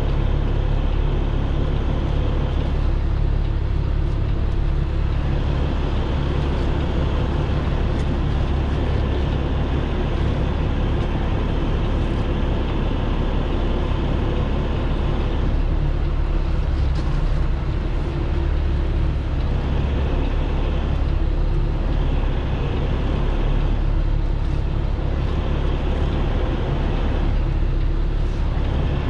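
Heavy tow truck's diesel engine running steadily at low revs while the truck backs slowly, heard from inside the cab as a constant low drone.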